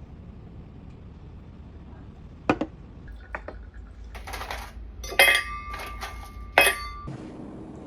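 Crockery and a metal spoon clinking in a coffee routine: a few sharp knocks, then a run of scrapes and bright clinks. Some clinks leave the ware ringing.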